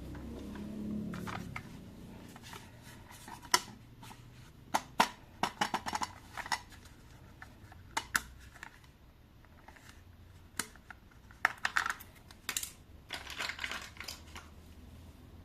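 Irregular sharp clicks, taps and crinkles of toy packaging and hard plastic parts being handled during an unboxing.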